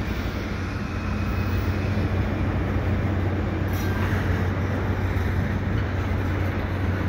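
RailPower RP20BD switcher locomotive with its slug, running with a steady low engine drone.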